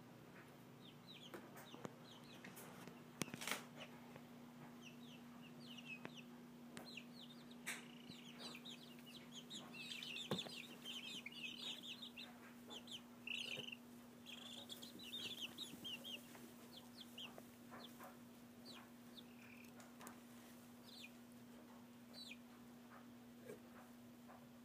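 A chicken snoring in its sleep: soft, short, high-pitched squeaky notes that come thickest about halfway through, over a low steady hum.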